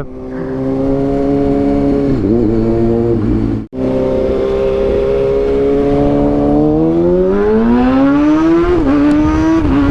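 Kawasaki ZX6R 636 inline-four running through a link pipe that replaces the catalytic converter, giving a loud, raw exhaust note. It holds a steady pitch, cuts out for an instant a little over a third of the way in, then revs up in a smooth rising climb and dips briefly near the end.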